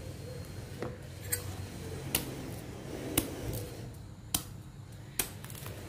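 Several light, sharp clicks and taps at irregular intervals, roughly one a second, from a split durian's spiky husk and segments being handled.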